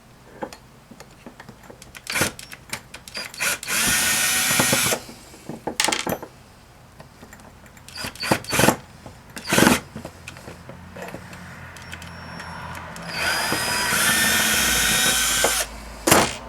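Power drill running screws out of a Flojet water pump's housing in two runs, about a second long around four seconds in and about two seconds long near the end, with clicks and knocks of the bit and metal parts in between.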